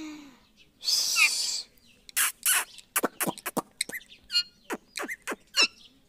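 Rose-ringed parakeet calling: a harsh screech about a second in, then a quick run of short, sharp chirps and squawks.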